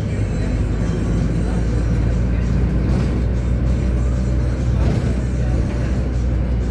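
Steady engine and road rumble heard inside a moving city bus, with music playing in the background.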